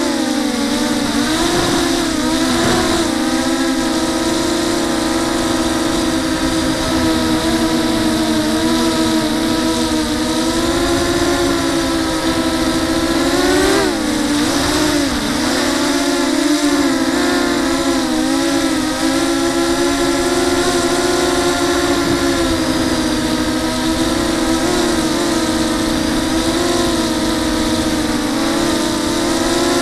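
TenTech Thug 250 FPV racing quadcopter's brushless motors and propellers, heard from its onboard camera: a steady buzzing whine whose pitch rises and falls with the throttle. About halfway through it climbs sharply, then dips and wavers.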